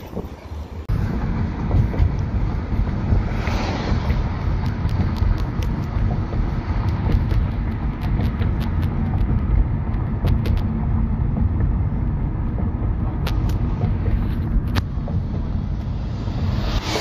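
Car cabin noise while driving: a steady low road-and-engine rumble that begins suddenly about a second in, with a few faint clicks now and then.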